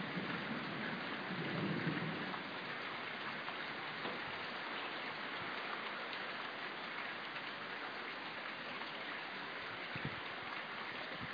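Steady heavy rain hissing down during a thunderstorm, with a low rumble that swells and fades in the first two seconds and a couple of faint taps near the end.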